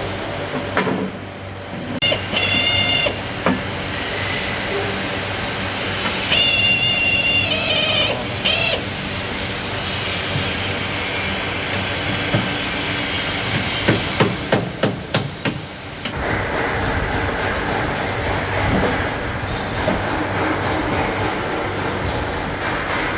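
Collision-repair workshop noise: a steady machine hum, two short high-pitched whines from a power tool, and a quick series of about seven sharp hammer blows about two-thirds of the way through.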